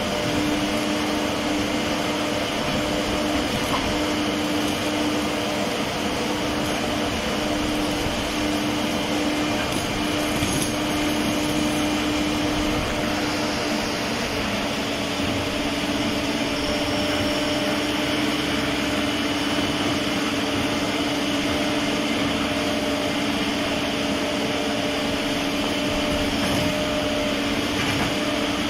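Menzi Muck 535X walking excavator running steadily, its engine and hydraulics giving a constant drone with a steady hum.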